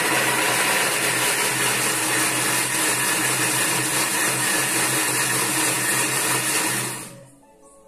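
Thermomix food processor chopping onions, its blade running at speed 7: a steady whirring that winds down about seven seconds in as the timer runs out.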